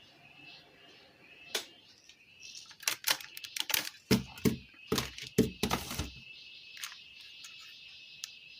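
Plastic clicks and knocks from handling a Kenwood car stereo's front panel and controls. They come as a cluster of sharp taps, with the heaviest knocks near the middle, over a steady faint high-pitched background hum.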